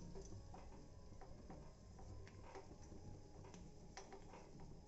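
Faint, irregular ticks and clicks from a pan of hot ghee as fried cashews and almonds are scooped out with a spatula.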